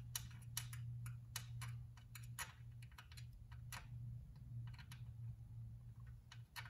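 Light, irregular clicks and taps of fingers handling the plastic bezel and small parts of a Corvette instrument cluster, over a faint steady low hum.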